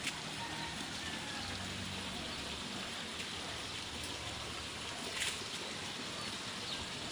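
Steady, even outdoor background hiss with a couple of faint clicks.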